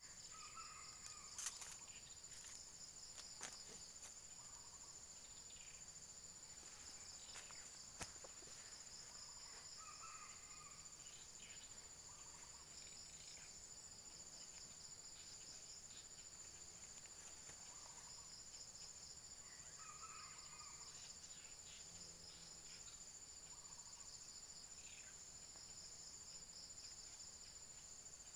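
Faint, steady high-pitched drone of insects, with short bird calls recurring every few seconds and a few sharp clicks in the first seconds and again at about 8 seconds.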